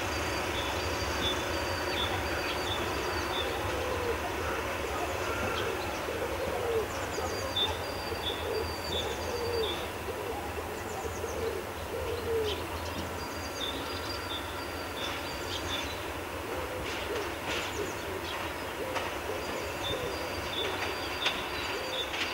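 An SM42 diesel shunting locomotive's eight-cylinder engine running in a steady low drone as it moves away light engine. Over it, birds are calling: a low repeated cooing and series of short high chirps.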